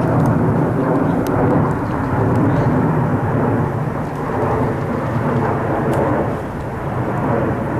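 Jet airliner passing overhead: a steady, low, rumbling roar from its engines.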